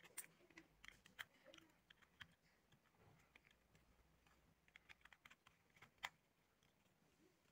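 Faint, scattered clicks and light taps of small plastic and metal parts being handled as an LED bulb's circuit board is fitted back into its plastic housing with fingers and tweezers; the sharpest click comes about six seconds in.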